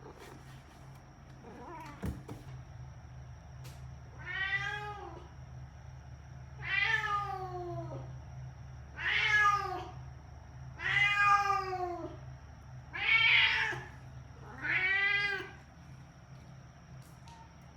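A cat meowing over and over: six drawn-out meows about two seconds apart, each rising and then falling in pitch, starting a few seconds in. This persistent calling is the sign of a cat that is not settling into life confined to a room.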